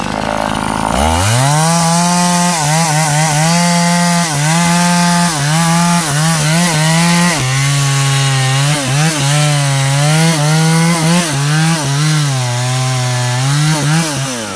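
Stihl two-stroke chainsaw revving up about a second in and running at full throttle as it cuts into the base of a teak trunk, its pitch sagging again and again as the chain bites into the wood. The throttle is released near the end and the engine drops back toward idle.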